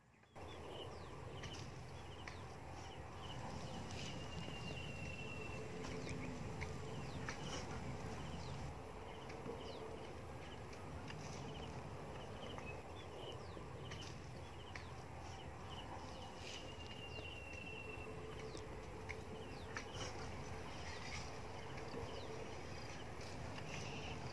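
Wood fire burning in a mud-walled brick kiln, a steady rush with scattered crackles and pops.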